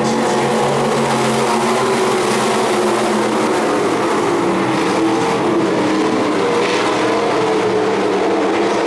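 A pack of stock cars racing, several engines running at once with their pitches wavering up and down as they circle the track.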